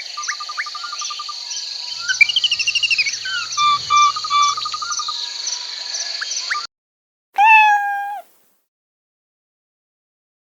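Birds chirping and calling over a steady, pulsing trill of insects such as crickets; the ambience cuts off suddenly about two-thirds of the way in. After a short silence comes a single drawn-out animal call, then silence.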